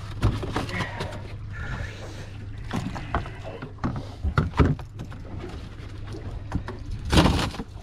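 A gaffed Spanish mackerel being hauled aboard over an aluminium boat's gunwale: scattered knocks and rattles of the fish and gaff against the hull, with a louder noisy burst about seven seconds in, over a steady low hum.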